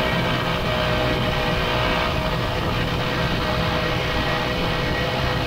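1967 Ski-Doo Olympique snowmobile's two-stroke engine running at a steady speed under way, heard from the rider's seat.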